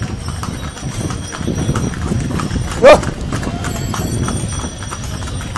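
Hooves of a two-horse cart clip-clopping on a paved street amid steady traffic noise. About three seconds in, a short, loud rising cry cuts through.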